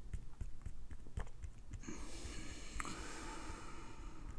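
Quiet room with scattered faint clicks, and a soft, drawn-out breath of a couple of seconds starting about two seconds in.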